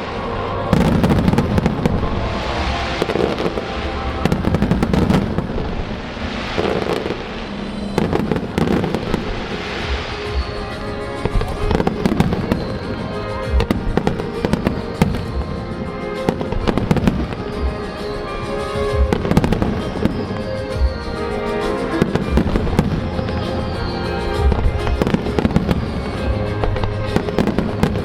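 Aerial fireworks display: a rapid series of shell bursts and crackles following one another without pause, with music playing along.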